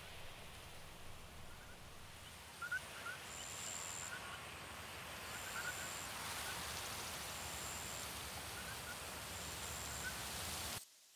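Outdoor ambience: a steady rushing noise with scattered faint chirping calls and a thin high tone that comes and goes every couple of seconds. It cuts off suddenly near the end.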